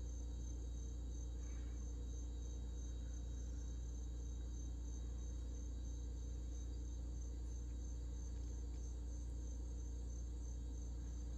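Insects chirping steadily outdoors in a high, evenly pulsing trill, over a steady low hum.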